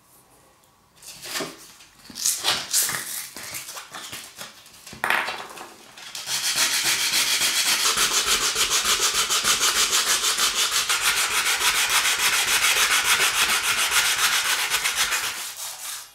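Small wooden knife handle rubbed by hand back and forth on a sheet of sandpaper laid flat on a bench. A few uneven scrapes come first; then, from about six seconds in, a long run of rapid, even sanding strokes.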